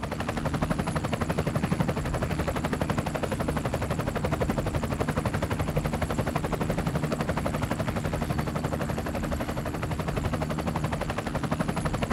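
Edited-in intro sound effect: a fast, even rattle of pulses, many a second, over a low steady hum, holding at one level.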